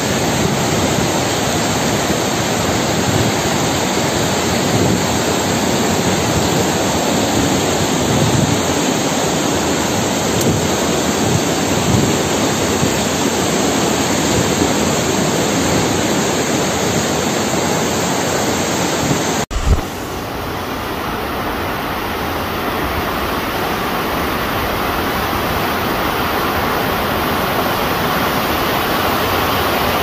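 Tall waterfall and its rocky stream rushing, a loud steady even roar of falling water. There is an abrupt cut about two-thirds of the way through, after which the rushing goes on a little softer.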